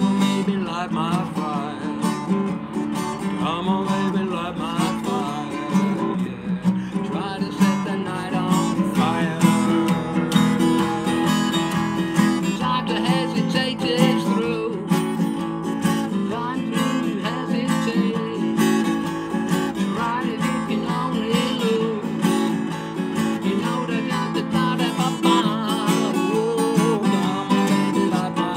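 Acoustic guitar strummed steadily, with a man's voice singing along.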